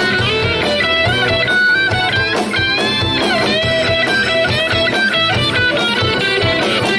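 Instrumental break of a rock song: a lead electric guitar plays a melody with string bends over strummed guitar chords and a steady drum beat.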